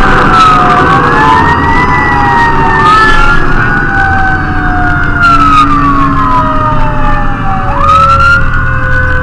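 Fire engine sirens wailing, with several siren tones rising and falling in pitch at once and one tone sliding slowly downward throughout. Under them is a steady low rumble.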